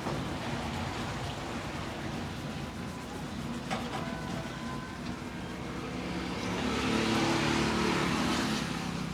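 Street traffic noise, with a motor vehicle passing close by and getting louder about two-thirds of the way through. A single sharp click a little before the middle.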